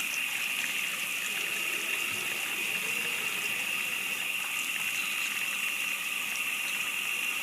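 Tap water running steadily into a sink as a bundle of hair is rinsed under it.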